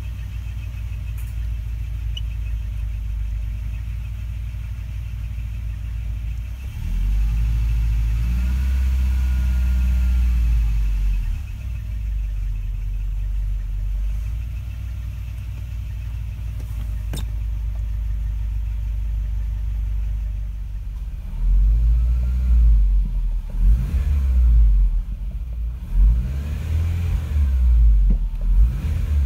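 Volvo 940 turbo's four-cylinder petrol engine running, heard from inside the cabin. It idles steadily, holds a higher rev for about four seconds starting around seven seconds in, settles back to idle, then from about two-thirds of the way through takes a series of short throttle blips.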